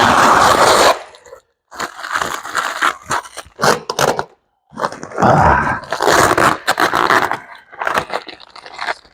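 Packaging around a set of exhaust headers being torn and crumpled open by hand, in loud, irregular bursts of tearing and crunching.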